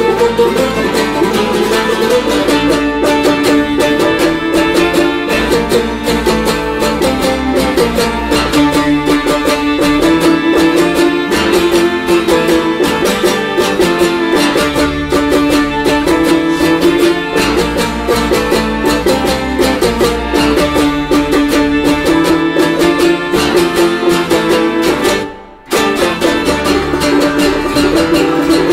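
Music: rapidly plucked acoustic strings over held low notes, loud and dense. It drops away for about a second near the end, then comes straight back.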